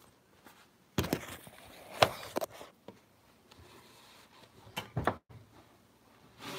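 Kitchen clatter as an oven door is opened and glass jars of melted wax are handled: a scrape about a second in, a sharp clack about two seconds in with a few smaller knocks after it, and two thuds near five seconds.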